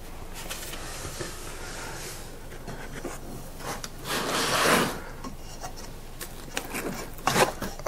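Hands handling 3D printer parts in a packing box: low rubbing and rustling, with a louder scraping rub about four seconds in.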